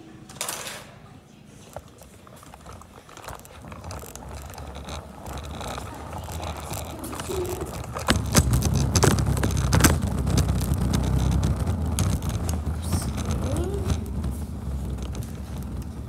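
Hoverboard wheels rolling on a bare concrete floor, a low rumble that grows and is loudest from about halfway in, with scattered clicks and knocks.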